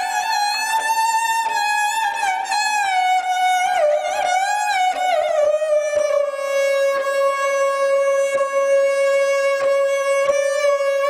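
Background music: a solo bowed string instrument plays a slow melody with sliding, ornamented notes, settling into one long held note about six seconds in.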